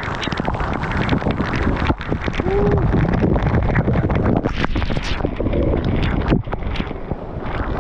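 Rushing water of a waterfall close to the camera, with wind buffeting the microphone and a few knocks.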